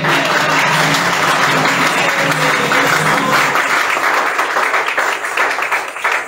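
Audience applauding, the clapping thinning into scattered claps near the end. The last held notes of the dance music fade out underneath during the first half.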